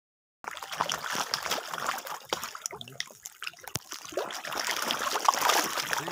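A dense shoal of hybrid magur (walking catfish) churning at the pond surface: a continuous wash of water with many small splashes and slaps. It starts abruptly about half a second in.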